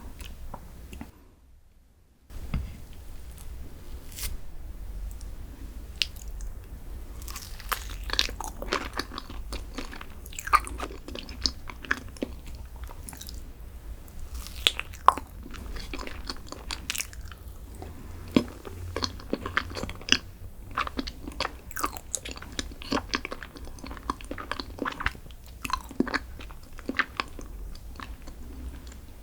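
Close-miked eating: a person biting and chewing crunchy food, with many sharp crackling crunches, after a short silent break about a second in.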